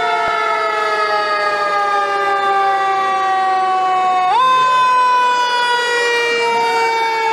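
Fire engine siren wailing loudly: a rich, many-toned wail that slides slowly down in pitch, jumps back up about four seconds in and slides down again, with a fainter second tone rising near the end.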